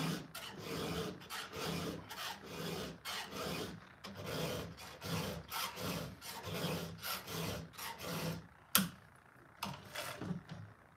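A file rasping across the cutters of a Stihl saw chain in quick repeated strokes, about two a second, as the chain is sharpened by hand. A single sharp knock comes about nine seconds in, then a few more strokes.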